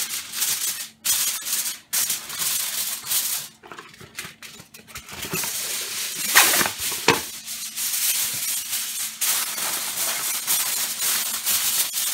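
Aluminium foil crinkling as it is pulled from its box and pressed down around the rim of a disposable aluminium pan, an uneven rustling with brief pauses and two sharper crackles about six and seven seconds in.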